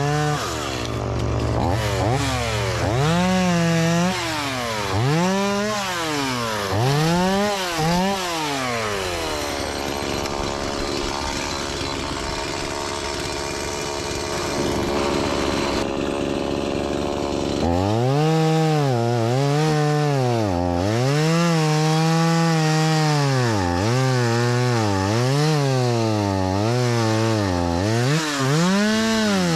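Chainsaw running and cutting wood, its engine pitch repeatedly rising and dipping as it is revved and loaded in the cut, holding steadier for several seconds in the middle.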